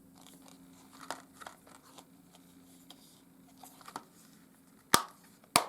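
Plastic Blu-ray case being handled: small rustles and light taps, then two sharp clicks near the end.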